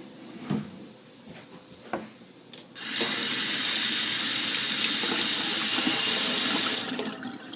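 Kitchen tap turned on, water running steadily into the sink for about four seconds, then shut off, after a few light knocks.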